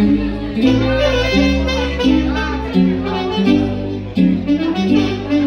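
Saxophone playing a melody live over an electronic keyboard backing with a bass line and a steady beat.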